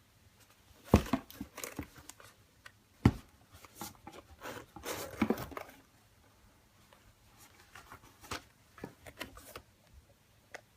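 Packaging being unwrapped by hand: sharp knocks and taps of a box, with a stretch of paper rustling and crinkling near the middle.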